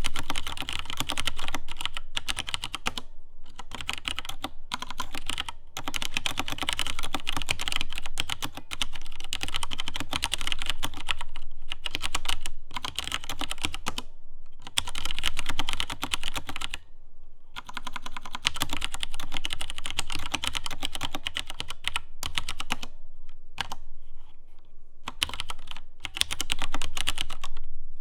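Filco Minila Air mechanical keyboard with tactile Cherry MX Brown switches being typed on steadily: fast runs of key strokes broken by a few short pauses.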